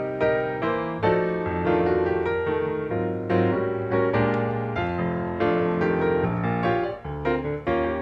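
Background piano music, with notes and chords struck one after another.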